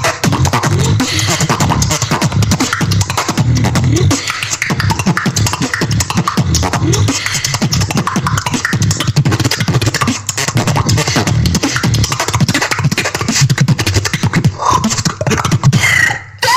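Solo human beatboxing: a fast, dense rhythm of heavy vocal bass with rapid clicky snares and hi-hats, cutting off abruptly near the end.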